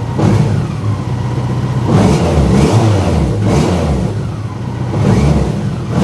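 BMW K1100 inline-four engine idling and being blipped on the throttle several times, revving up and dropping back to tick over each time.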